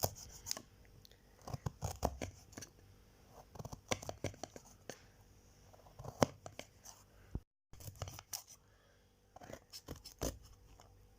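Knife chopping peeled fresh ginger into small pieces, a run of irregular sharp clicks and knocks.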